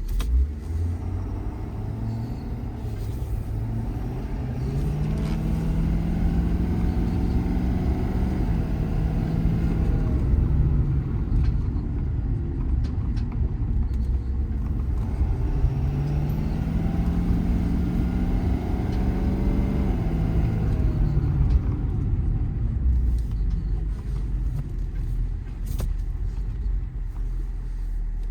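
Ford F-550's 6.7 Powerstroke V8 turbo-diesel heard from inside the cab while driving, with a steady low rumble. The engine note rises for several seconds as the truck accelerates, then drops back, and the same happens again about halfway through.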